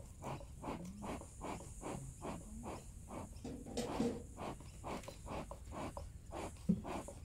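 An animal call made of rapid rasping pulses, about four a second, going on without a break, with one sharp knock near the end.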